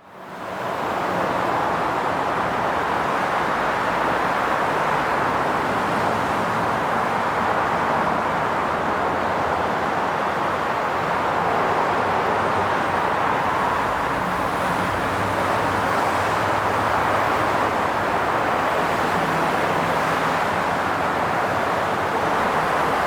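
Steady highway traffic: a continuous, even rush of tyres and engines with a low engine hum underneath. It fades in from silence within the first second.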